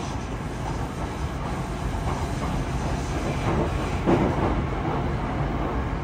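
Running noise inside a Yokohama Municipal Subway 3000S-series train car: a steady rumble of wheels on rail. A few knocks come through it, the loudest about four seconds in.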